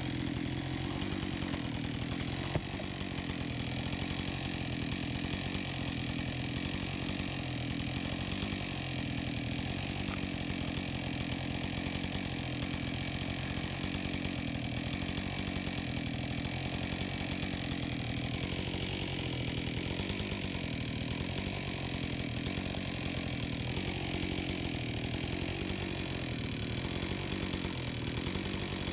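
Husqvarna 576 XP two-stroke chainsaw with a 24-inch bar running at a steady engine speed, with one short sharp click about two and a half seconds in.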